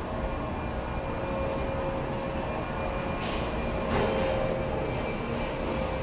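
415 series electric multiple unit pulling slowly out past the platform, with a steady hum and two short, sharp knocks about three and four seconds in.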